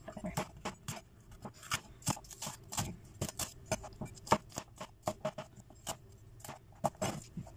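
Chef's knife chopping a green bell pepper on a plastic cutting board: quick, uneven taps of the blade striking the board, several a second.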